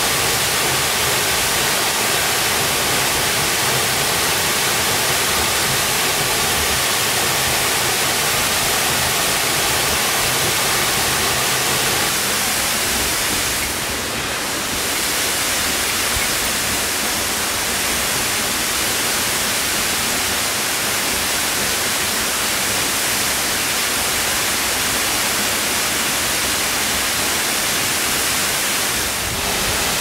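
A 69-foot waterfall plunging off a cliff into its pool: a loud, steady rush of falling water that dips briefly about halfway through.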